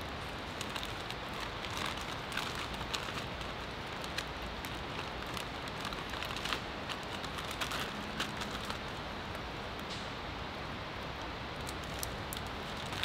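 Small wood campfire burning, a steady hiss with frequent irregular crackles and pops.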